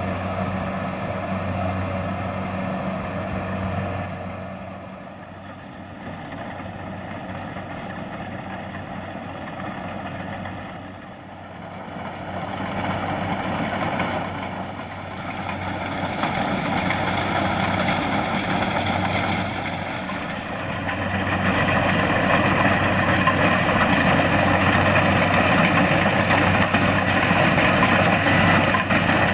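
Kubota DC-70 Plus rice combine harvester's diesel engine running steadily as the machine works through the crop. It dips in level partway through, then grows louder about two-thirds of the way in.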